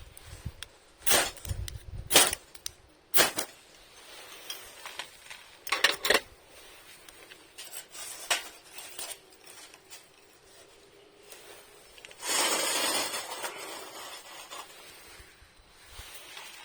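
Camp cookware and utensils being handled: a series of sharp clinks and knocks, then about twelve seconds in, a noisy rustle lasting a second or so.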